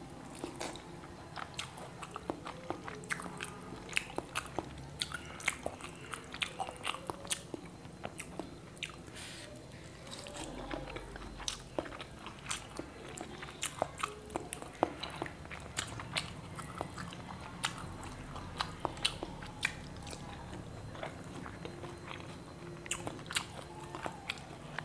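Close-miked chewing and biting of fried eggs eaten by hand, a steady run of many small irregular mouth clicks.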